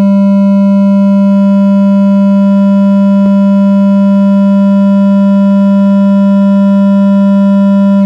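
Miniature subwoofer in a tiny 3D-printed ported enclosure playing a steady sine test tone of about 200 Hz at full test power, loud and slightly buzzy with overtones. A brief click about three seconds in, and the tone cuts off at the end.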